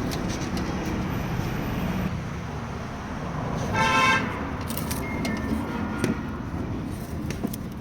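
Steady traffic rumble with a vehicle horn honking once, briefly, about four seconds in; a few light clicks follow.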